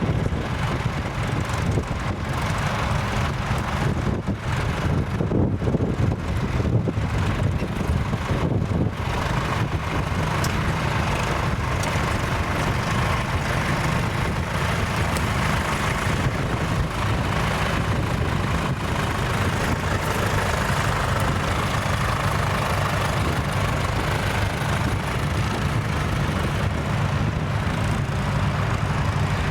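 Tractor diesel engine running steadily at constant speed. Wind buffets the microphone in gusts during the first several seconds.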